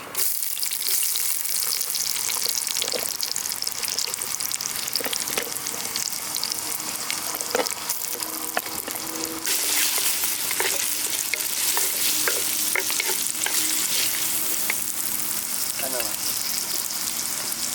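Chopped onions frying in hot oil with popping mustard seeds in an earthenware pot: a steady sizzle with scattered small crackles, being stirred. It gets a little louder about halfway through.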